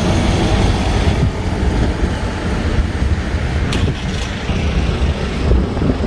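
Steady rumble and hiss of a moving vehicle's road and engine noise, which cuts off abruptly at the very end.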